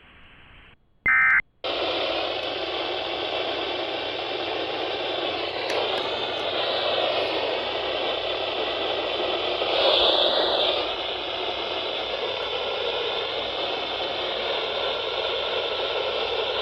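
Steady radio static hiss from a weather radio receiver, with faint wavering tones of a weak signal under it. About a second in, a short, loud electronic tone burst comes just before the hiss starts.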